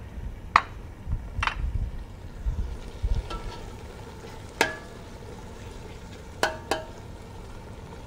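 A metal ladle stirs thick gravy in a stainless steel stockpot and clinks against the pot five times, each clink ringing briefly. There are dull low bumps in the first few seconds.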